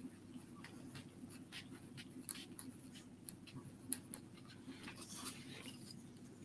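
Faint scratching of a pen or pencil writing on paper in short, irregular strokes, over a low steady hum.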